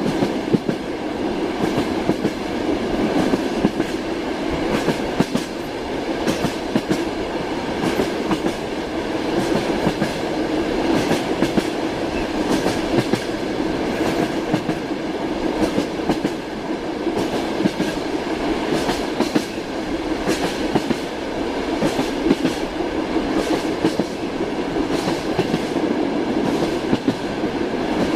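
Moving train: wheels clattering over the rail joints with many sharp knocks over a steady rumbling running noise.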